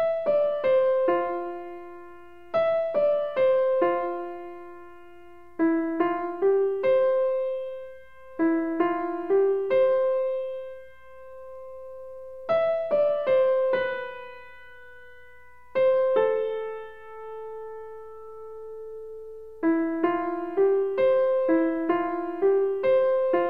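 Background music: a gentle solo piano playing short phrases of struck notes, with a couple of notes left ringing for several seconds between phrases.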